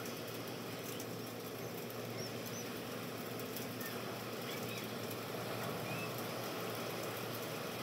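Steady room noise, a constant hiss, with a few faint, short high chirps scattered through it.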